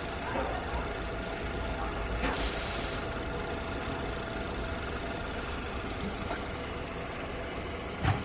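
Portable car air compressor running with a steady motor hum. A short burst of air hiss comes about two seconds in.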